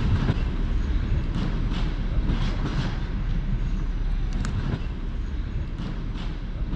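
Passenger train hauled by an SU45 diesel locomotive rolling through the station, its wheels clacking irregularly over rail joints above a steady low rumble, easing off slightly near the end.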